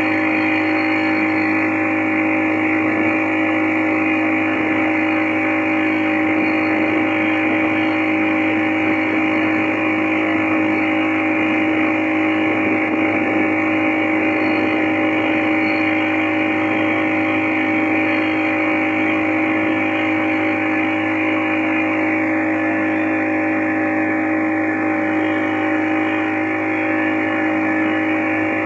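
Boat motor running at a steady, constant speed: an even drone that holds one pitch throughout.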